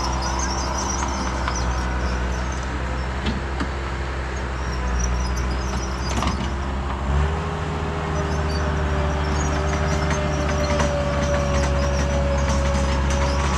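Earthmoving machine's engine running steadily with a whine above it. About seven seconds in, the engine note steps up and holds higher, as under more throttle or load. A couple of brief knocks come earlier.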